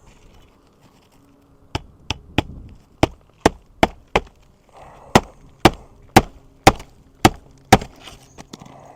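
Hammer driving roofing nails to fasten a replacement asphalt shingle: about a dozen sharp strikes in two runs, roughly two a second.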